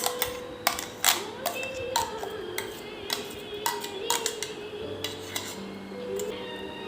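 Soft background music with held tones, over a series of about a dozen irregular sharp clicks and clinks of hard objects being handled and set down.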